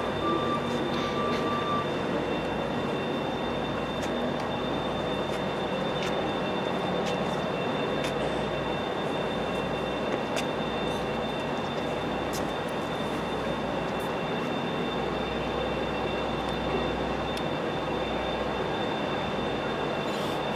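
Steady running noise of a standing passenger train at a station, with a constant high-pitched whine and a few faint clicks.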